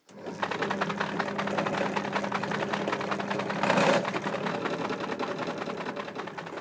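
Bench drill press running, its bit cutting into a soft aluminium brake plate to drill out a worn M8 thread hole. A steady motor hum with a fast rattle throughout, loudest about four seconds in, easing off near the end.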